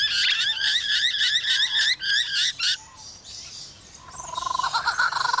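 Lyrebird calling: a fast run of rising whistled notes, about four a second, for the first two and a half seconds. After a short lull, a lower warbling series of notes builds toward the end.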